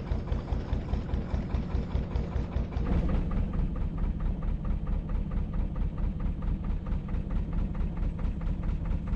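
Narrowboat's air-cooled engine chugging at a steady, even beat as the boat cruises; it gets louder about three seconds in.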